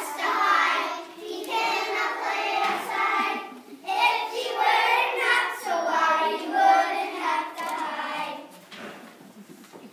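A group of young children singing a song together in phrases, fading out near the end.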